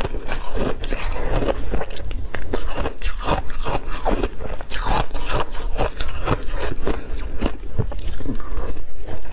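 Close-miked crunching of a block of mixed-berry ice coated in matcha powder being chewed, a dense irregular crackle of breaking ice, with a fresh bite into the block near the end.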